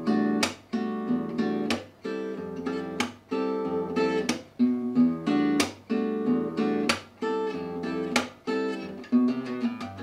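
Acoustic gypsy-jazz guitar playing a fingerstyle, bossa-nova-like rhythm that moves between E minor 9 and F major 7 chords. Ringing chords alternate with a sharp muted stroke on beats 2 and 4, about every second and a quarter, with a little bass line running under them.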